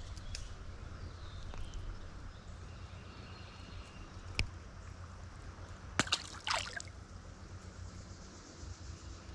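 Creek water running steadily, with a sharp click about four and a half seconds in and a brief cluster of knocks and a short noisy rush about six seconds in.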